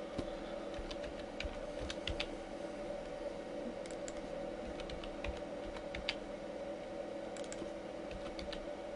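Typing on a computer keyboard: sparse key clicks in short runs over a steady hum.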